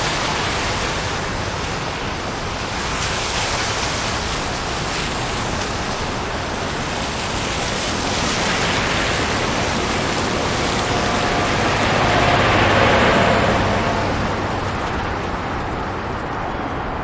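Steady outdoor traffic noise. It swells as a vehicle passes about twelve seconds in, then eases.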